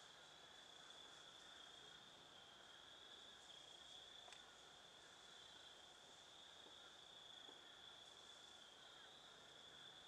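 Near silence in woodland, with a faint, steady, high-pitched insect drone like a cricket chorus. A single faint tick about four seconds in.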